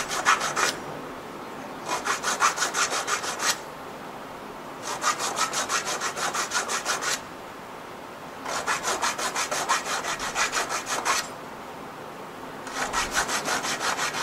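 Small triangular file rasping back and forth in the thread grooves of a five-start lead screw, in short bouts of quick strokes (about six a second) with pauses of about a second between as the screw is turned to the next start. The filing takes burrs out of the thread starts so that a coupling nut will screw on.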